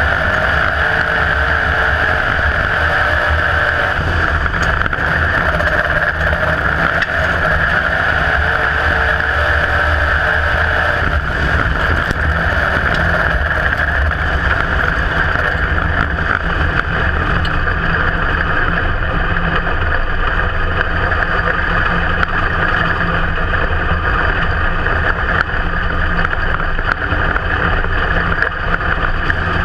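IMCA Modified race car's V8 engine running hard at racing speed, heard from inside the cockpit as a loud, steady drone.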